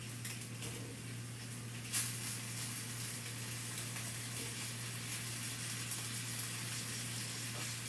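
Polenta slices frying in olive oil in a pan: a steady, even sizzle, with one sharp knock about two seconds in.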